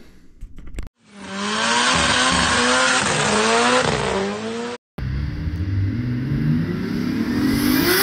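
Car engine held at high revs, wavering up and down, over the hiss and squeal of spinning tyres in a burnout. It cuts off abruptly about five seconds in, then an engine revs up again with its pitch rising steadily.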